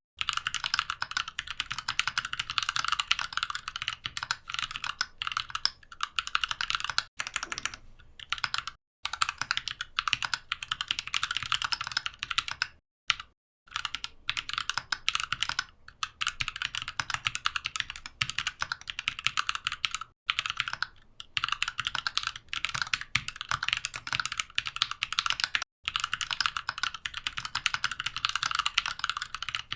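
Mechanical keyboard being typed on quickly: a dense run of rapid key clicks, broken by a few brief pauses.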